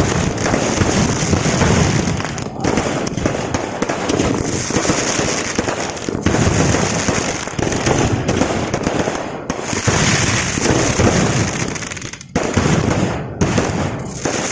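Fireworks display: a dense, continuous barrage of aerial shell bursts and crackling, with a few sudden brief breaks.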